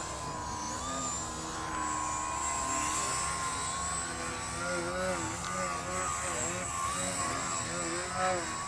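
Electric motors of a small RC foam airplane and a Blade 130 X helicopter whining, with several tones wavering up and down in pitch, more so in the second half.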